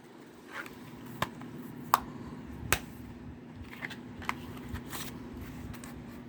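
Plastic Blu-ray case and discs being handled: a series of sharp clicks, the loudest about two seconds in, with light scraping between them over a steady low hum.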